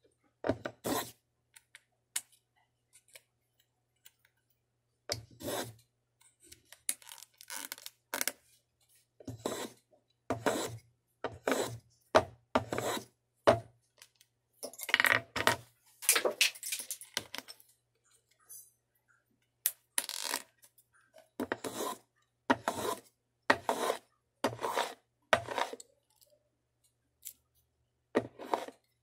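Hand tools working small wooden kumiko strips: irregular short scraping strokes, often one or two a second with pauses between, and a few sharp clicks.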